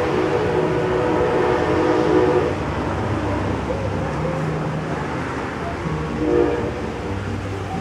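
Train horn sounding: a chord of several steady tones held for about two and a half seconds, then again more faintly near the end, over the low rumble and steady noise of a passing train.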